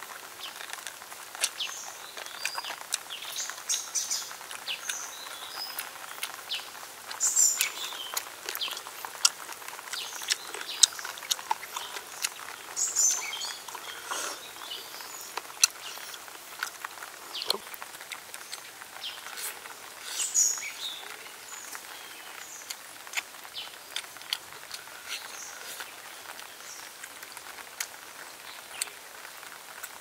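Close-up eating sounds: wet lip smacks and chewing of grilled chicken, with meat being torn apart by hand, as a run of sharp irregular clicks. A few bird chirps sound faintly behind them.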